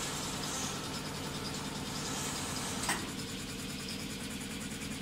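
Industrial multi-needle quilting machine line running: a steady mechanical hum with a few low tones held under it, and a single short click about three seconds in.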